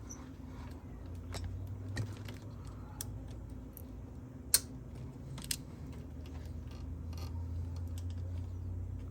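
Scattered light metallic clicks and taps as the throttle cable end and adapter are worked onto the throttle bodies with a pick, with one sharp click about four and a half seconds in and a smaller one a second later, over a low steady hum.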